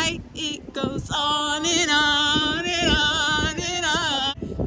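A woman singing long, held notes with vibrato. There are a few short bits first, then one sustained phrase that stops just before the end.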